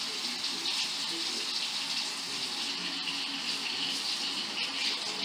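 Kitchen sink faucet running steadily, a continuous rush of water, left on until the water runs hot before the dishwasher is started.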